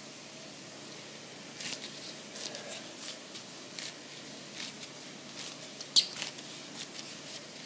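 Hands pressing and spreading oiled pizza dough out in a pan: soft, scattered squishing and rustling, with one sharper click about six seconds in.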